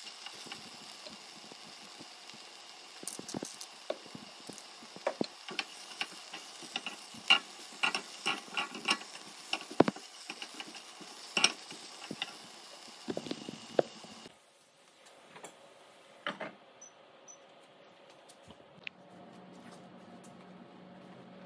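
Bitter melon and egg sizzling in a nonstick skillet as a silicone spatula stirs them, with frequent light taps and scrapes of the spatula against the pan. About fourteen seconds in the sizzle stops suddenly, leaving a few light knocks and a low hum.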